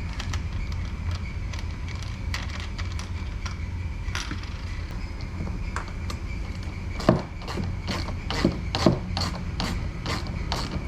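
Bolts being tightened through the kayak's plastic hull with a hand ratchet: scattered clicks that settle into a regular run of about three a second in the second half, with a few louder knocks, over a steady low hum.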